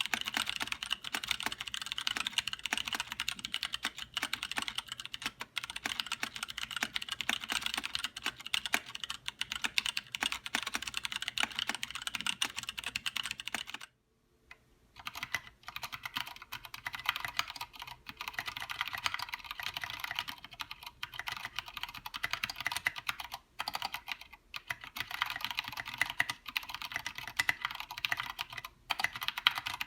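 Continuous fast typing on a 60% mechanical keyboard, a dense run of key clicks and clacks. About 14 s in, the typing stops for about a second, then resumes with a slightly different tone on another board or keycap set.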